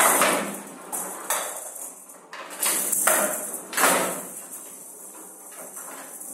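Showdown rally: the rattling showdown ball is struck with wooden bats and knocks off the wooden table's side walls, sharp hits coming about once a second, then quieter after about four seconds.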